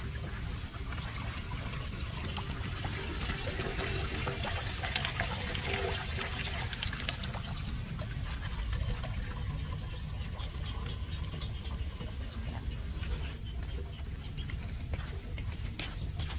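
Water trickling and running, with scattered light ticks and a steady low rumble underneath.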